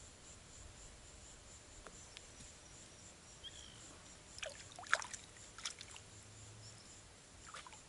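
A few short water splashes and sloshes around the middle, with one more near the end, as a tilapia is handled at the water's edge, over a faint steady high insect trill.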